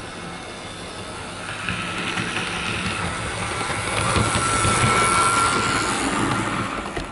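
Dapol Class 52 Western model diesel locomotive running past on the layout: a steady motor whine with its wheels clicking on the track, growing louder as it approaches, loudest around four to six seconds in, then fading, and cut off abruptly near the end.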